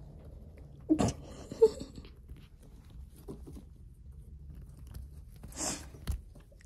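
Kittens scrabbling and clawing on a lap: claws on a jacket and jeans, rustling and small knocks, with a sharp knock about a second in and a rustle and thump near the end, over a low steady hum.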